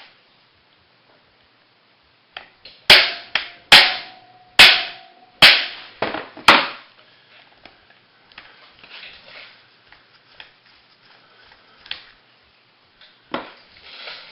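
Hammer striking a hand impact screwdriver to break loose the side-cover screws on a Honda ATC 110 engine: five sharp blows about a second apart, with a short ring after the first few. Quieter clicks and small handling noises follow.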